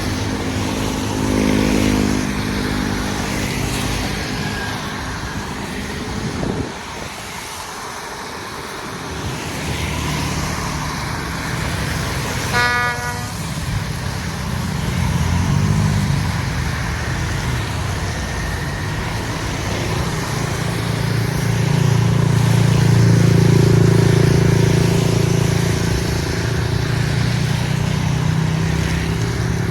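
Alsthom diesel-electric locomotive 4410, fitted with a Caterpillar engine, running, with a short horn toot about twelve seconds in. The engine then works harder and louder through the second half as the train pulls away.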